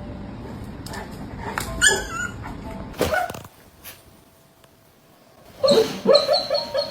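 A dog whimpering and yipping: short high cries about two and three seconds in, then a louder run of cries near the end, over a low rumbling noise in the first few seconds.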